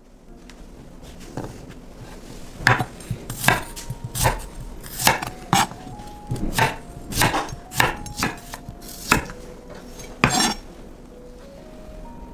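Kitchen utensils clattering: about a dozen sharp, irregular knocks and clinks over several seconds, with quiet background music underneath.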